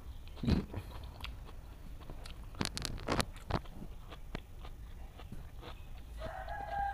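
A man coughing a few short times, his throat catching after choking on a mouthful of food. Near the end a rooster starts crowing.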